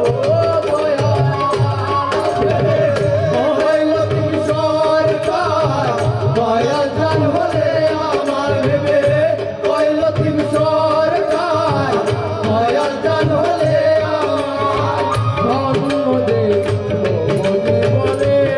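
Live Bengali folk band playing: a flute melody and singing over a steady tabla and barrel-drum rhythm.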